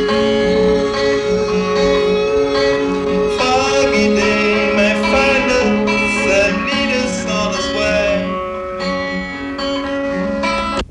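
Instrumental passage of a guitar band song from a digitized cassette: held guitar chords under a wavering lead line in the middle, breaking off abruptly at the very end.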